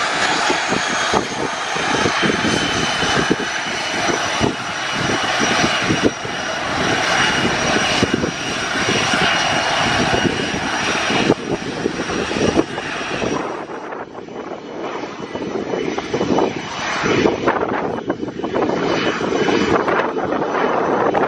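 Boeing 737-800 jet engines running with a steady high whine over a loud rushing noise. About two-thirds of the way in there is an edit, after which the whine carries on over a more uneven rush.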